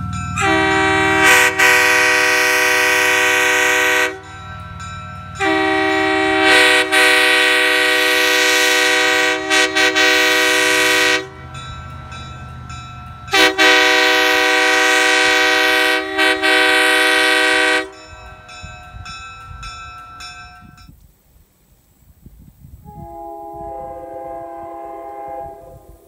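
Restored Nathan Airchime K3L three-chime train horn blowing its chord on compressed air: three long, steady blasts of roughly four, six and four and a half seconds, then a shorter, quieter blast near the end.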